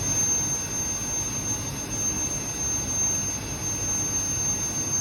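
Steady industrial machinery noise from an Ipsen sealed quench furnace installation: a continuous low rumble with a constant high-pitched whine over it.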